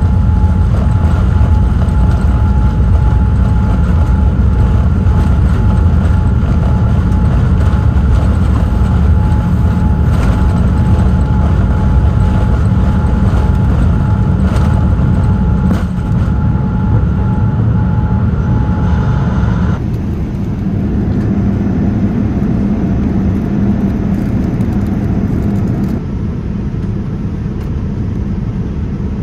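Cabin noise of a Boeing 787-9 on the ground, heard from a window seat over the wing: the Rolls-Royce Trent 1000 engines and the airframe give a loud, steady rumble with a steady whine on top. The whine stops about twenty seconds in and the sound changes, and near the end it gives way to a somewhat quieter, steady cabin hum.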